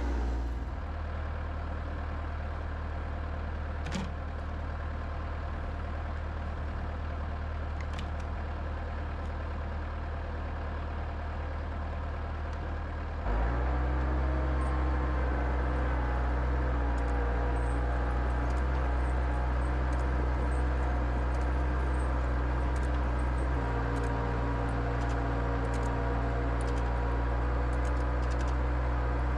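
Bobcat skid steer loader's engine running steadily. About halfway through it becomes louder and fuller, heard from the operator's seat.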